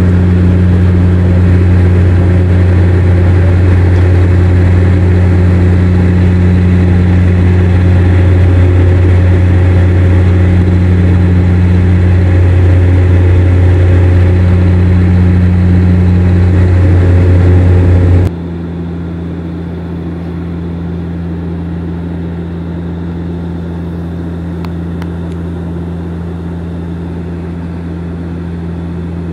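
Cabin drone of a Dash 8 Q400's turboprop engines and propellers in the climb: a loud, steady low hum with a higher tone above it. About eighteen seconds in it drops abruptly to a quieter, steadier drone.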